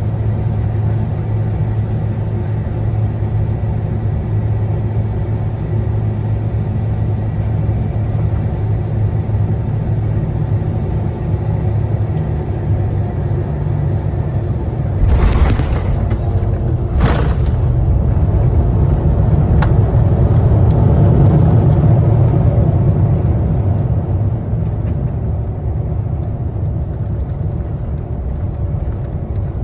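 Cabin noise of an Airbus A350 with Rolls-Royce Trent XWB engines landing: a steady engine and airflow drone on short final, then two thumps about two seconds apart, about fifteen seconds in, as the wheels touch down. A louder low rumble follows as the airliner rolls out and slows on the runway, easing off near the end.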